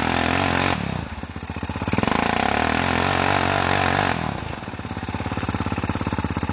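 ATV engine revving under throttle, easing off about a second in, revving again for about two seconds, then dropping back to a slow low-rev putter.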